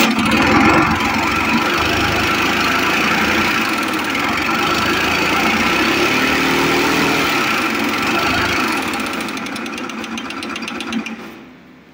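Motorcycle engine running with a loud, heavy mechanical racket that the customer had called only a slight noise; the mechanic jokes it will be fixed with an oil can, since it is far from slight. The noise fades away over the last few seconds as the engine is shut off.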